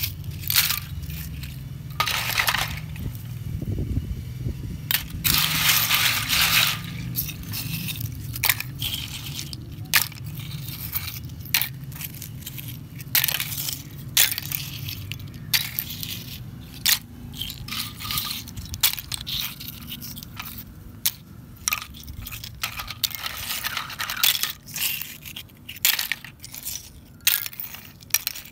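Seashells being moved about in a steel basin, clinking and scraping against one another and the metal in irregular sharp clicks, with a couple of longer grinding rasps among them.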